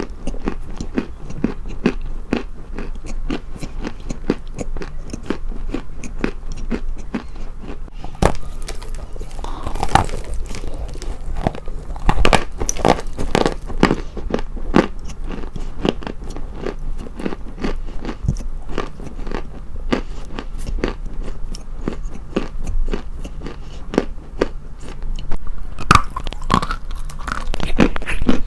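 Close-up crunching: a dense, continuous run of crisp crackles and crunches, getting louder and busier about eight seconds in and again near the end.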